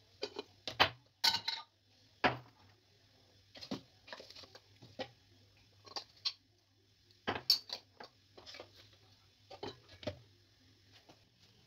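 Metal spoon clinking and tapping as spices are spooned out and tapped off onto a pile of breadcrumbs: scattered sharp taps, some in quick clusters, over a faint low hum.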